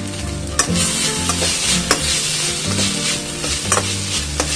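Shredded cabbage, carrot and onion sizzling in a stainless steel pan as a steel spatula stirs them, with a few sharp clinks of the spatula against the pan.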